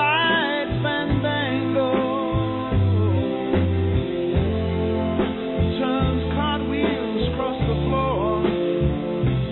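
Background music: a song with a singing voice over a bass line that moves from note to note.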